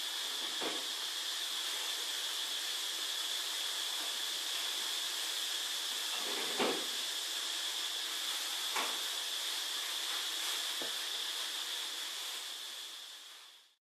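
Steady background hiss with a thin, constant high whine, broken four times by brief soft clicks or taps, fading out near the end.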